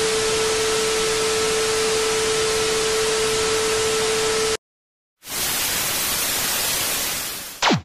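Analog TV static sound effect: a steady hiss with a steady test tone under it, cutting out for about half a second. The hiss then returns without the tone and ends in a brief, steeply falling tone.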